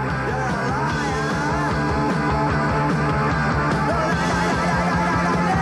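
Punk rock band playing: a steady, dense wall of rock music.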